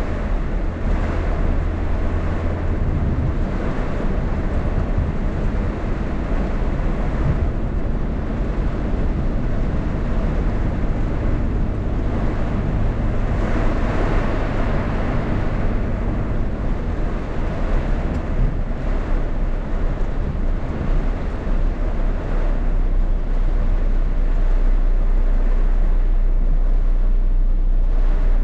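Heavy rainstorm: a steady, loud rush of rain and wind, with wind buffeting the microphone into a deep rumble.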